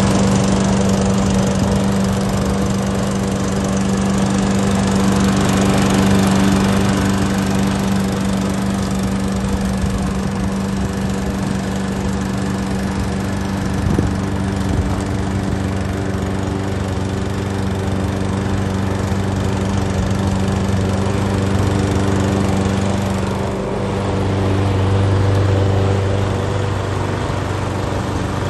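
Petrol lawn mower engine running steadily, its note dipping briefly about three-quarters of the way through.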